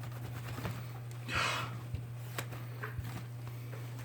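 Faint scattered clicks of small tools handling the phone's frame over a steady low electrical hum, with one short breathy exhale about a second and a half in.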